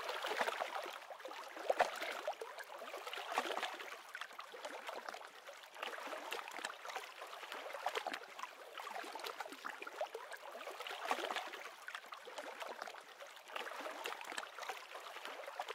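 Small waves lapping and rippling on open water, a quiet, uneven wash with many little splashes.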